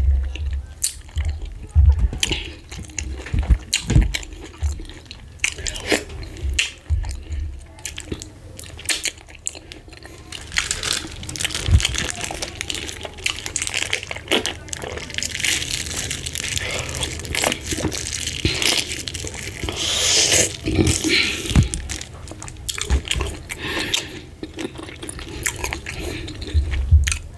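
Close-miked eating of fufu with ogbono soup: chewing and wet, sticky mouth sounds with sharp clicks and crunches. A longer stretch of denser wet noise comes in the middle.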